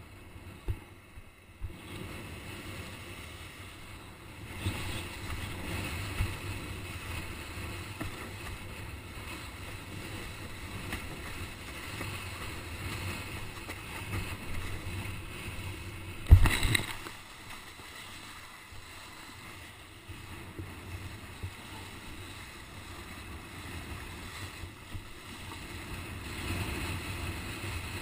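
Windsurfer planing over wind-whipped chop: a steady rush of water past the board mixed with wind buffeting the action-camera microphone. A few short knocks at the start, and one loud thump past the halfway mark.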